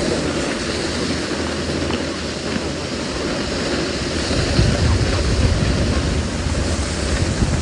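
Steady rushing noise of a snowboard run: wind buffeting the microphone and the board sliding over snow. A low rumble grows louder about four and a half seconds in.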